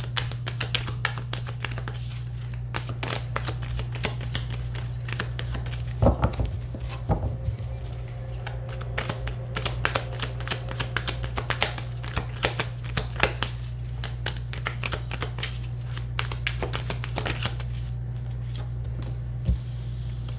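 A deck of tarot cards being shuffled by hand: a long run of quick card clicks and riffles, with a couple of dull thumps about six seconds in. The shuffling thins out near the end, over a steady low hum.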